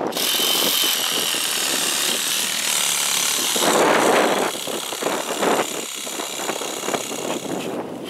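A handheld cordless leaf blower running with a high motor whine and rushing air, blasting the dry grass and dirt about four seconds in, then switched off shortly before the end.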